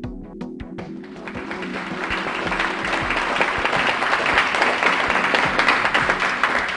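Intro music of quick plucked notes, fading out about a second in, giving way to audience applause that builds up and carries on.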